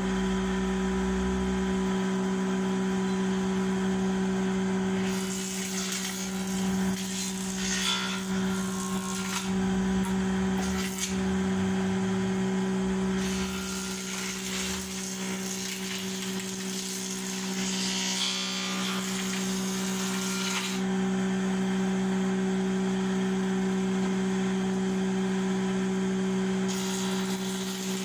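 Woodworking jointer running with a steady motor hum while a board is fed on edge over its cutterhead to square the edge. The hiss of the knives cutting comes and goes in several passes, starting about five seconds in.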